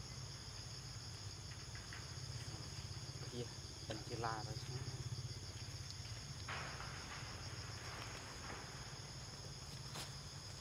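Steady, high-pitched chorus of insects shrilling without a break, with a short wavering call about four seconds in and a few faint clicks.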